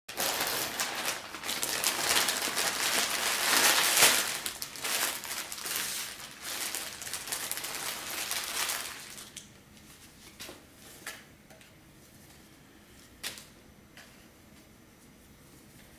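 Plastic packaging being handled and opened: continuous loud crinkling and crumpling for about nine seconds, then dying down to a few soft rustles and taps.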